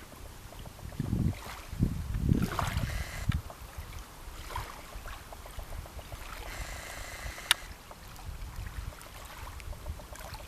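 Wind rumbling on the microphone, with stronger gusts in the first few seconds, and one sharp click about seven and a half seconds in.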